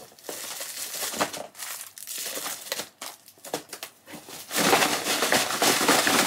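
Plastic-wrapped candies crinkling and rustling as they are pushed into a cardboard piñata. The rustling grows louder and denser about four and a half seconds in, as the piñata is tipped and the candy inside is shaken to mix it.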